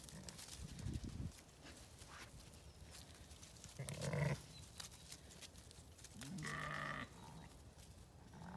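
Zwartbles sheep bleating twice: a short bleat about four seconds in and a slightly longer, steady one about two seconds later.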